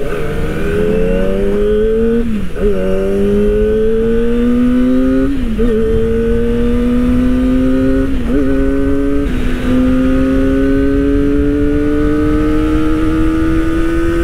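Kawasaki Ninja ZX-25R SE's 250 cc four-cylinder engine accelerating through the gears. Its pitch climbs steadily in each gear and dips briefly at each of about four upshifts, over a low rush of wind.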